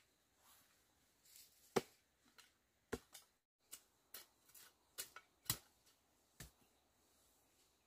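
Irregular sharp clicks and knocks, about a dozen, the loudest a little under two seconds in.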